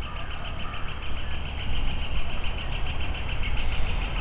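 Steady low rumble, like traffic, with a high-pitched chirr pulsing about eight times a second over it.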